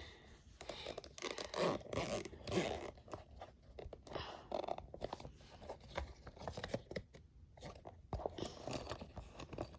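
Zipper of a fabric pencil bag being worked open and shut in short, uneven scratchy pulls, with rustling and scraping as the bag is handled; the zip is sticking and hard to close.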